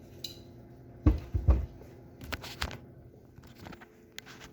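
A few dull thumps about a second in, followed by sharper clicks and faint taps: knocks from something being handled.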